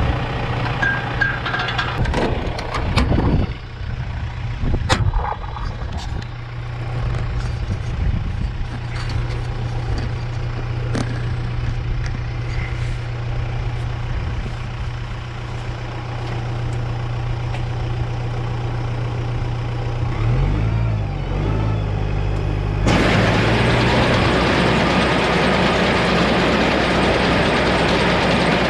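Tractor engine idling, with scattered metal clanks and knocks in the first few seconds. Near the end the engine note wavers, then a loud, steady mechanical clatter starts suddenly: the hay baler running again after being cleared of a plug of dry hay.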